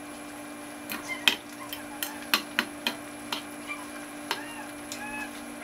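Cooking utensil clacking and scraping against a pot as simmering chicken adobo is stirred: a run of sharp clacks, the loudest a little over a second in.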